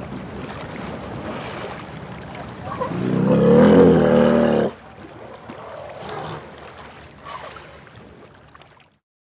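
Water sloshing and splashing around two elephants sparring in a river. About three seconds in comes a loud, wavering pitched call lasting nearly two seconds, the loudest sound here.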